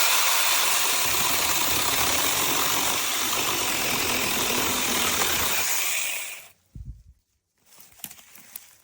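Battery-powered 6-inch mini chainsaw running at full speed with a steady high whine and chain noise, then stopping about six seconds in.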